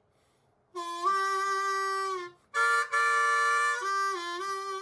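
Music: a wind instrument holding long chords that starts a moment in, in two phrases with a short break just after two seconds, the notes shifting near the end.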